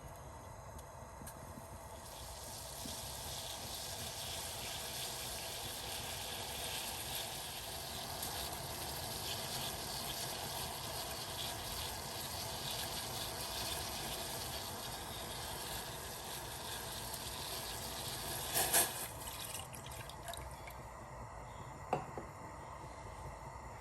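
Steady watery hiss of liquid that builds slowly, then drops away at a sharp click about eighteen seconds in, leaving a fainter hiss.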